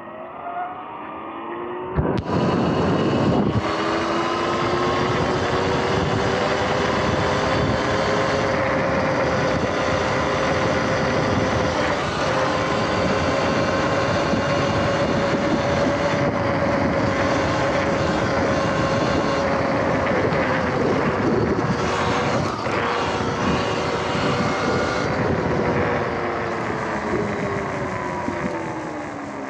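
Sur-Ron X electric dirt bike's motor whining, rising in pitch as it pulls away, then holding a steady pitch under a loud rush of wind and road noise while cruising. Near the end the whine falls in pitch as the bike slows.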